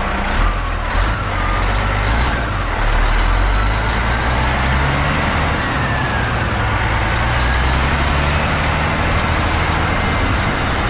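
Semi tractor's diesel engine running as the log truck moves at low speed, a steady low drone with a faint whine that dips and rises midway. A couple of knocks about half a second and a second in.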